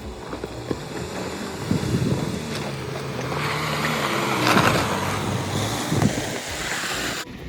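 Off-road vehicle engine running under load on a rocky trail climb, with rough crunching noise swelling in the middle. The sound cuts off abruptly near the end.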